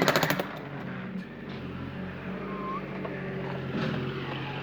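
A jackhammer's rapid hammering on concrete breaks off about half a second in, leaving a steady low engine hum with a few faint knocks.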